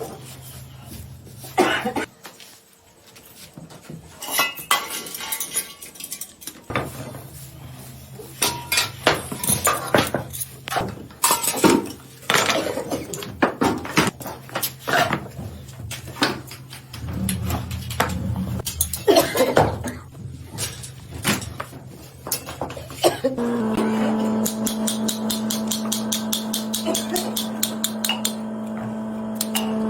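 Metal being struck and clanked in irregular strikes over a low hum while bells are worked. About three-quarters of the way through, a motor-driven machine starts up and runs steadily with a fast, even ticking.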